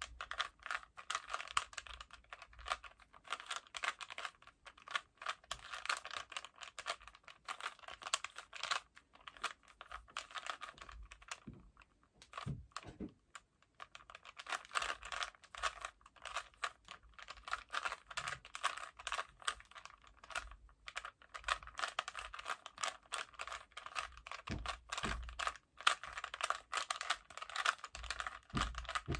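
Rubik's cube being solved by hand: a fast, continuous clatter of plastic layers clicking as they are twisted, with a short pause about halfway through.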